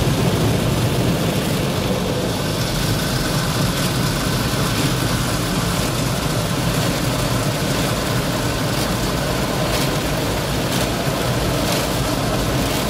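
Automatic car wash heard from inside the car: a steady low rumble of the wash machinery and idling car, with water spray and brushes washing over the windscreen and body. A few light slaps come near the end.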